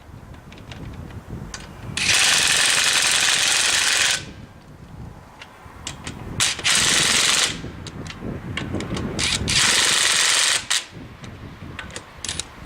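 Ridgid 18V brushless half-inch impact wrench hammering in three bursts: a long one about two seconds in, then two shorter ones. It is working fasteners loose, with quieter clunks between the bursts.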